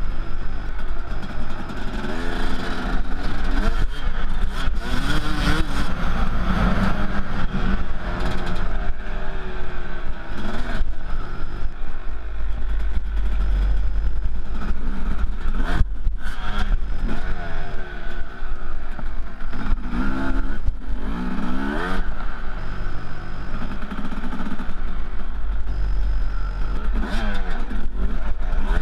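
Off-road motorcycle engine heard from the rider's helmet, revving up and down as the bike rides over rough dirt trail. Wind buffets the microphone.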